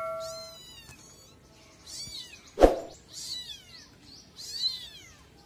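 Young kittens mewing in short, high-pitched calls that fall in pitch, about five times, with a single sharp knock about two and a half seconds in.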